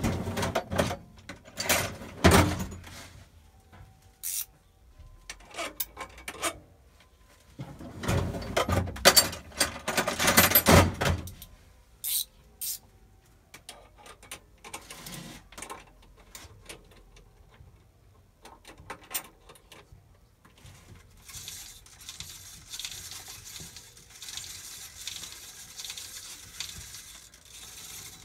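Metal clinks, knocks and rattles of tools and parts being handled at a milling machine, in dense clusters for the first twelve seconds, then a few scattered clicks. About two thirds of the way through, a steady hiss sets in and continues.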